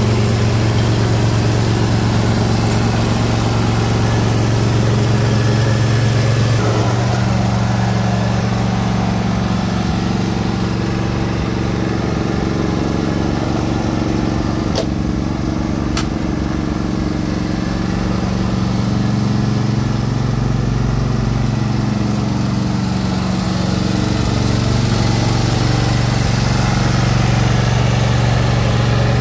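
Air-cooled Briggs & Stratton Intek V-Twin engine of a Husqvarna R 214TC ride-on mower running steadily, its note shifting about a quarter of the way in. Two short clicks about a second apart near the middle.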